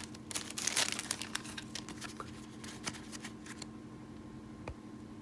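Crinkling of trading card pack wrappers and cards being handled, a dense crackle that thins out and stops a little over halfway through. After that there is a faint steady hum with one sharp click near the end.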